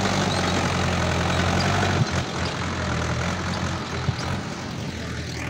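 Mahindra 415 DI tractor's diesel engine running steadily at a low idle. A sharp click comes about two seconds in, and after it the engine is a little quieter.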